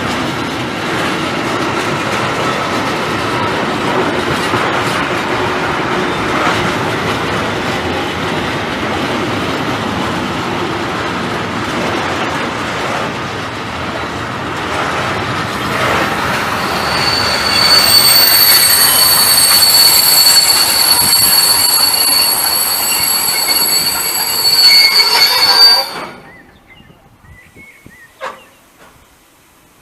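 A train passing close by with a steady rolling rumble and clatter; from a little over halfway through, a loud, high, steady wheel squeal joins in and then cuts off suddenly near the end.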